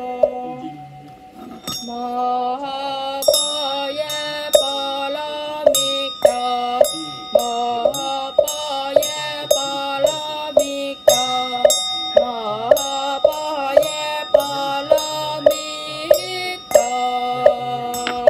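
A man chants a mantra in a sung, melodic recitation. It is accompanied by a ringing vajra hand bell and a bowl bell struck with a mallet, the strokes falling steadily about every 0.6 seconds from about three seconds in.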